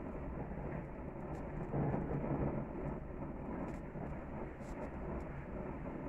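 Gas grill searing a tri-tip roast: a steady low rushing of the burner flames and meat over the grates, with faint scattered crackles and a brief swell louder about two seconds in.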